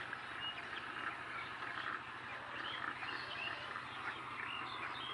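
A flock of chickens calling, with many short overlapping clucks and peeps, over a steady low hum.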